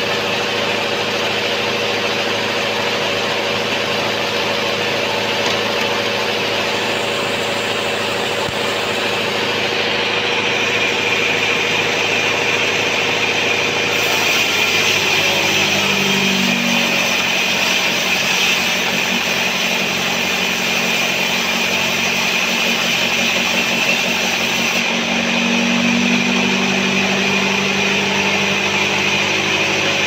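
Band sawmill running steadily as its blade saws through a sengon (albasia) log, a continuous machine drone mixed with the hiss of the cut. The low hum of the drive changes pitch about halfway through.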